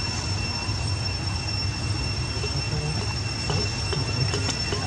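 Steady high-pitched insect drone over a low rumble, with a few faint clicks near the end.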